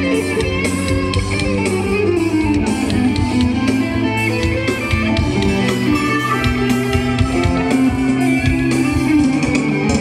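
Live band music, with guitar and drums, coming over a stadium line-array PA system during a soundcheck.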